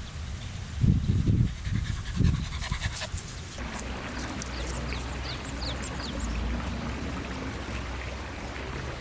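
A dog panting close to the microphone for the first couple of seconds. From about halfway in, a steady rush of running creek water takes over, with short high bird chirps over it.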